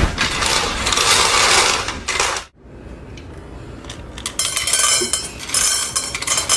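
A loud rushing noise that cuts off abruptly about two and a half seconds in, followed a couple of seconds later by a run of light metallic clinks and rattles from dishes or cutlery.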